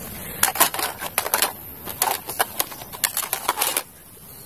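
Plastic toy guns clattering and knocking against each other and a plastic basket as they are rummaged through: a quick, irregular run of sharp clicks lasting about three seconds, stopping shortly before the end.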